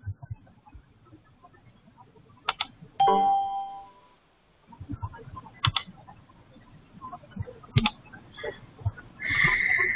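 Computer mouse clicks, a few scattered double clicks, and about three seconds in a short electronic notification chime that rings out and fades within a second as screen sharing starts. Near the end comes a brief higher-pitched sound.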